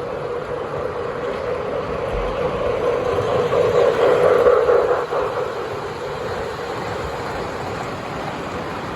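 HO scale model train running along the layout track, a steady motor hum and wheel rumble. It grows louder as the train passes close, then drops off about five seconds in.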